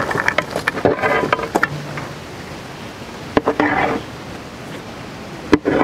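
Chopped green apple tipped off a steel plate into a large aluminium pot of cut fruit: a rapid rattle of pieces and metal clicks in the first second and a half. A utensil is then worked through the fruit, with scattered scrapes and one sharp knock on the pot near the end.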